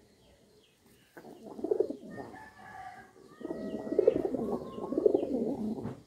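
Domestic pigeons cooing in two loud spells, a short one about a second in and a longer one from just past the middle that cuts off near the end. Under them runs the faint, evenly repeated high chirping of small birds.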